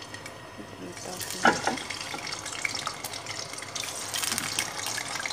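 Hot cooking oil in a pan sizzling and crackling as finger-cut potato sticks are dropped in to fry, the crackle growing denser near the end. One brief loud clack about a second and a half in.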